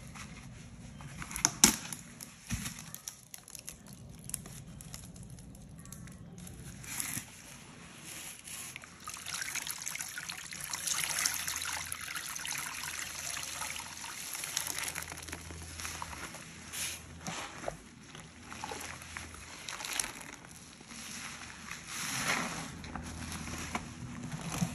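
Wet sponges coated in white powdered cleanser squeezed and sloshed by gloved hands in a bowl of water, with water trickling and dripping back into the bowl. A sharp click about two seconds in.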